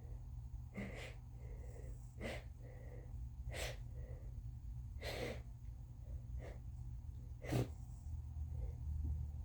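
A woman's congested sneezing fit from a heavy head cold: a run of about six short, breathy gasps and sneezes, roughly a second or so apart. The sharpest and loudest comes near the end.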